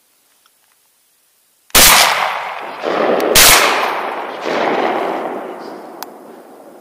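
Two shotgun shots about a second and a half apart, each followed by a long rolling echo that dies away slowly.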